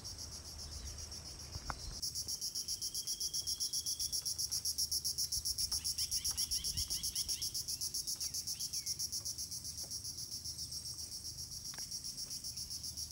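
Chorus of forest insects calling in a high, rapidly pulsing buzz that swells about two seconds in and then holds steady. A few faint bird chirps sound beneath it.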